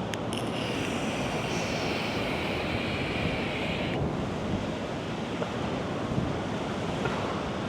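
Wind buffeting the microphone over the rush of sea surf, with a higher hiss through the first four seconds that cuts off suddenly, and a couple of clicks right at the start.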